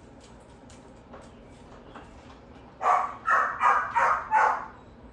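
A dog barking five times in quick succession about three seconds in, after a few faint light clicks.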